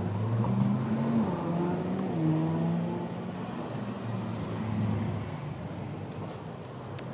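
A car engine running past, its pitch rising and falling, fading away about five seconds in.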